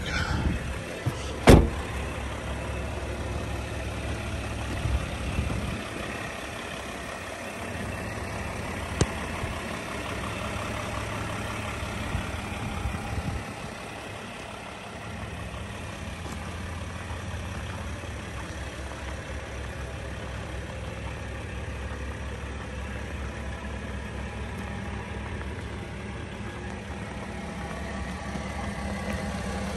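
Steady low running drone from the parked 4x4 Mercedes Sprinter with its Espar diesel heater going, with a sharp knock about a second and a half in.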